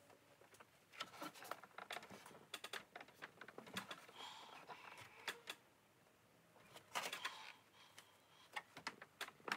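Faint, irregular light clicks and taps in clusters, from the aluminium elevator skin and its wooden bending blocks being handled and pressed while the trailing edge is bent.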